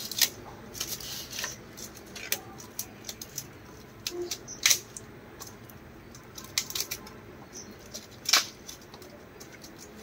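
Sharp snips and clicks of a cutting tool working through the folded tab of a tin strip, irregular and a second or more apart, with louder cuts about halfway through and near the end.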